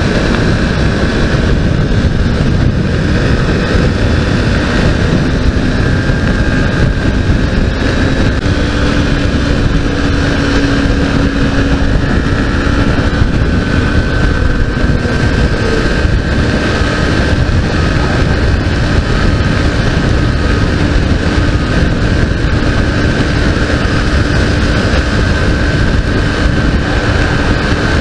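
Modenas Ninja 250's parallel-twin engine running at steady highway cruising speed under heavy wind rush on the microphone; the engine note steps up slightly about eight seconds in.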